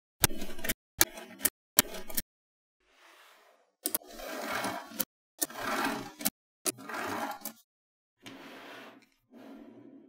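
Small neodymium magnetic balls clicking and scraping against each other as fingers press and slide rows and clumps of them into place. The sound comes in short separate bursts, each starting and stopping abruptly, the loudest a little past the middle.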